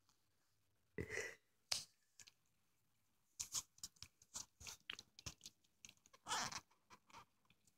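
Irregular crackling and clicking right at the microphone from a hand rubbing a tabby kitten's fur while the kitten mouths and nibbles a finger. It starts about a second in and comes in short bursts, the longest about six seconds in.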